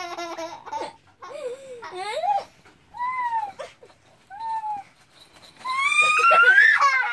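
A young boy laughing hard in breathless, drawn-out squeals separated by short pauses; the loudest, highest squeal rises near the end.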